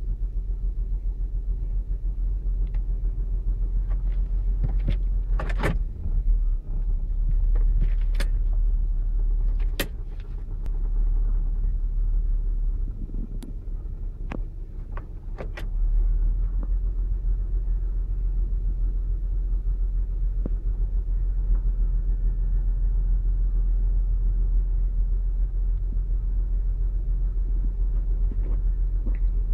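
A 2008 Saturn Outlook's 3.6-litre V6 idling on a cold start as a low, steady rumble; the owner is chasing a cold-start misfire. Several sharp clicks come between about five and sixteen seconds in, and the rumble drops for a few seconds in the middle.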